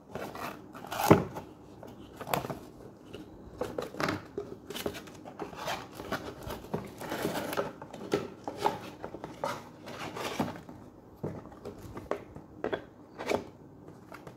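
Cardboard box and plastic packaging being handled and unpacked: irregular rustling and light knocks, with one sharper knock about a second in.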